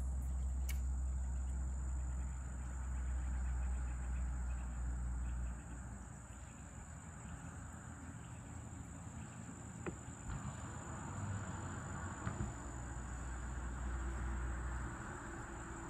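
Steady, high-pitched drone of insects over a low rumble; the rumble drops away about six seconds in and comes back near the end.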